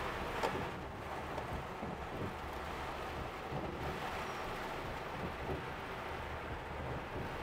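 Torrential rain drumming steadily on a large truck's cab, heard from inside. The truck's engine and tyres on the wet road rumble low underneath.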